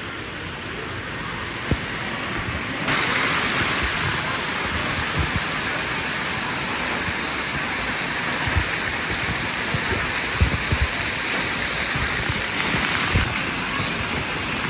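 Water from a splash-pad play structure spraying and pouring onto wet concrete, a steady rush like heavy rain that gets louder about three seconds in. A few dull low thumps are heard through it.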